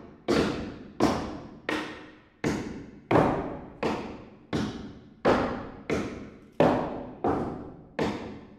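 Steady hammering on the wooden roof of a hut frame, nails being driven into the boards: about thirteen blows at an even pace of roughly one and a half a second, each a sharp knock that rings briefly in the wood.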